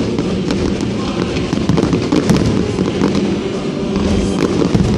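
Aerial fireworks shells bursting in quick succession: a dense, continuous barrage of overlapping booms and crackles.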